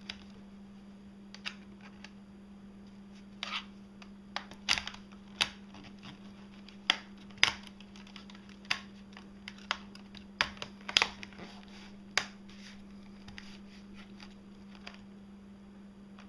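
Irregular small plastic clicks and taps from handling the Acer Aspire One D257 netbook's case and parts, some of them snap-fit clips being pressed home, over a faint steady hum.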